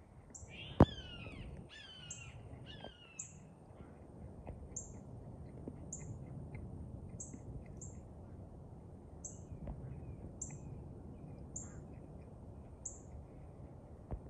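American crows giving three mobbing caws at a hawk in the first three seconds, each call falling in pitch, with a sharp click at the first caw. A short high chirp repeats about once a second throughout.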